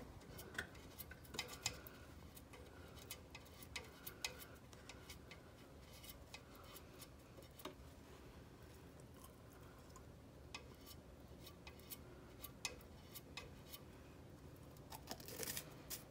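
Faint, irregular small clicks and taps from a jar of white brazing flux and its applicator being handled and dabbed at a refrigerator's steel-to-copper tube joint, with a denser cluster of clicks near the end.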